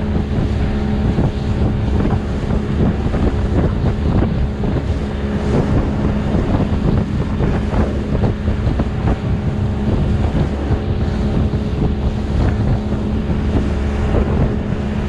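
Outboard engine running at a steady cruising speed as a small boat motors across choppy water, with wind buffeting the microphone and irregular thumps of the hull on the waves.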